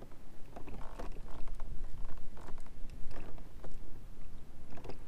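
Fishing kayak under way on calm water: irregular small creaks and knocks from the hull and its fittings over a steady low rumble.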